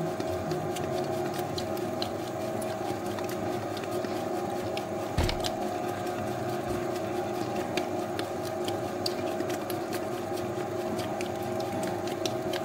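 Spiral dough mixer running steadily, its hook kneading a soft high-hydration bread dough near the end of mixing, as it turns smooth. Scattered light clicks over the hum, and a brief thump about five seconds in.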